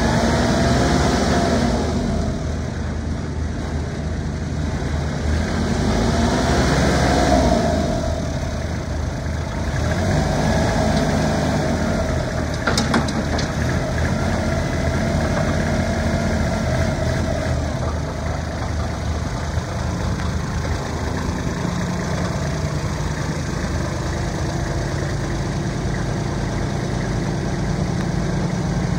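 Kubota Sunshine LT215 compact tractor's diesel engine running while it is driven and its front loader raised, the revs rising and falling through the first half, with a short sharp clank about halfway through. It then settles to a steady idle.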